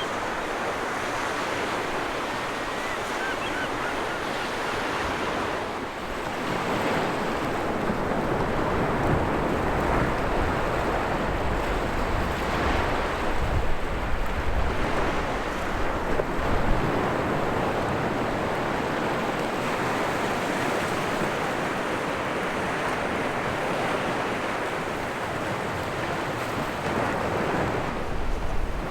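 Gentle sea waves breaking and washing up a beach: a continuous surf wash that swells and eases, a little louder from about six seconds in.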